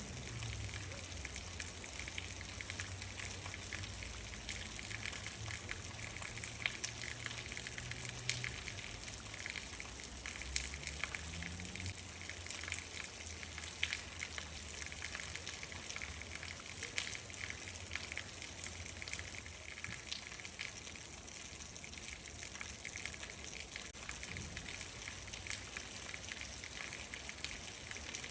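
Steady rain with many individual drops ticking on a surface. A low hum sits under it for about the first twelve seconds.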